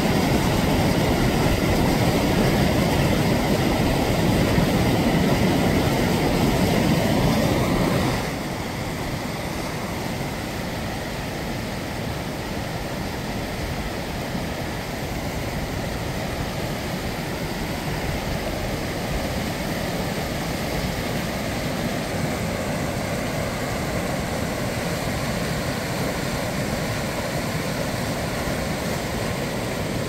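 Steady rushing of a mountain stream and waterfall tumbling over rocks, a continuous roar of water. It is louder for the first eight seconds or so, then drops suddenly to a lower, still steady level.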